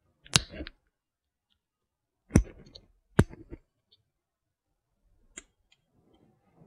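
Hand crimping pliers clicking shut on a small terminal on a wire: three sharp metallic clicks in the first few seconds, then a fainter one near the end.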